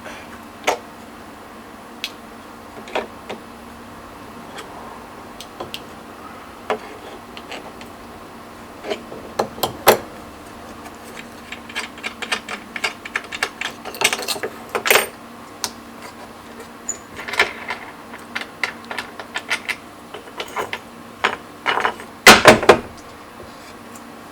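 Irregular clicks, taps and clatters of small hard objects being handled, more frequent in the second half, over a faint steady hum.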